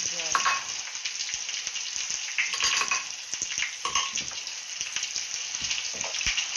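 Eggplant frying in hot oil in a pan, a steady sizzle, with a few light clinks of a metal spoon against a glass dish.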